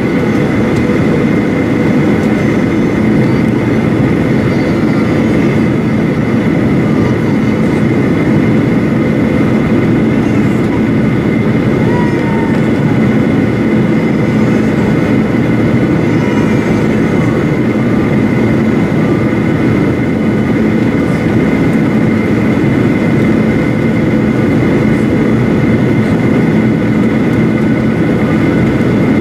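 Steady cabin noise of a Boeing 737-800 on final approach, heard from a seat over the wing: its CFM56-7B engines running with the rush of airflow. It is a loud, even rumble with a few faint steady tones above it.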